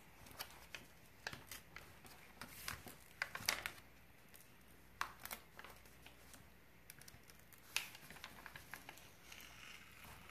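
Diamond painting canvas and its protective cover sheet being unfolded and peeled back by hand: quiet, irregular crinkles and crackles of stiff paper and coated canvas.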